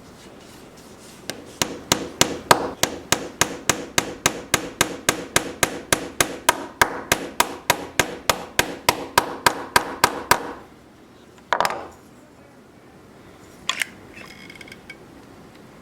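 A hammer tapping rapidly and evenly on wood, about three to four light blows a second for about nine seconds, then stopping. A short scrape and a couple of clicks follow.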